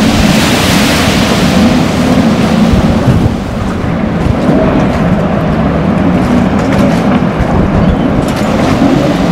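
Loud, steady rumble of a boat under way: its motor drones beneath wind buffeting the microphone and water rushing past the hull, and the hiss eases a little about three seconds in.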